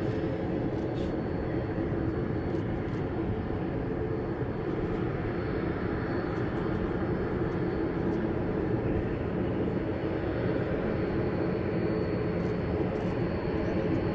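AG600 amphibious aircraft's four WJ-6 turboprop engines running as it taxis on the water: a steady propeller drone.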